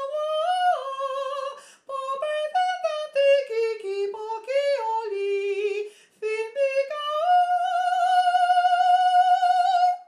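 A woman's solo voice, amplified through a microphone, singing a mock-Chinese melody in short stepped notes, then holding one long high note for about three seconds before stopping.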